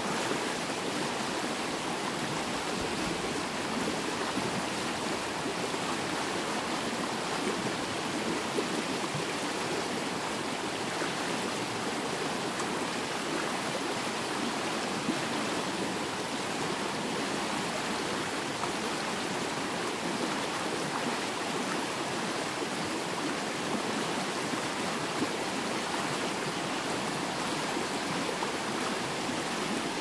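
Yeşilırmak river flowing: a steady, even rush of water with no distinct splashes.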